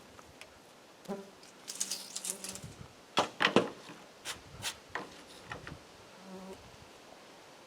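An insect buzzing in two short spells, about a second in and again near the end. Several sharp clicks and knocks fall in between, the loudest about three and a half seconds in.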